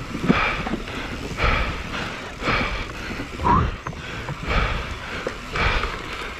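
Mountain bike rolling over a wooden plank boardwalk, tyres rumbling and knocking on the boards with the bike rattling. Over it comes rhythmic heavy breathing from the rider, about one breath a second.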